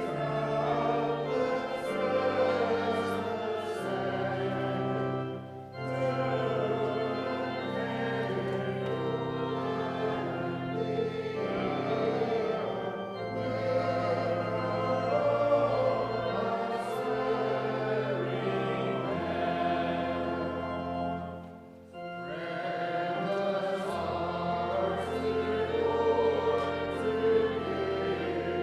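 Congregation singing a hymn to organ accompaniment, with long held bass notes under the voices. The sound drops briefly twice between phrases, about five seconds in and again about 22 seconds in.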